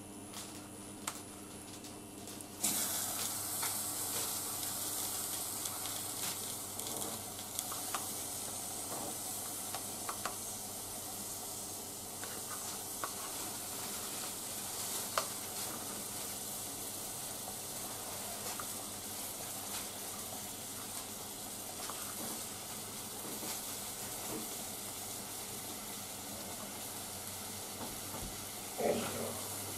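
A saucepan of hot water with boiled adzuki beans in it sizzles with a steady hiss that starts suddenly about three seconds in, as the beans are tipped in. Light taps and scrapes of a spatula against the bean cup sound over it, with a louder scrape near the end.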